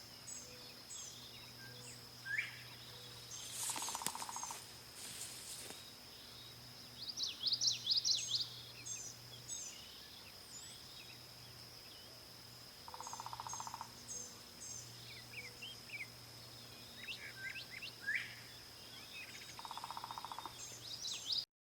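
Several grassland birds singing and calling in open fields: many short high chirps and song phrases, over a steady high thin whine. A short low buzzy trill repeats three times, and the sound cuts off abruptly near the end.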